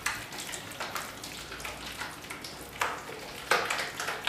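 Orange cream being stirred briskly in a metal bowl to work in cold butter: wet swishing and scraping strokes at an uneven pace.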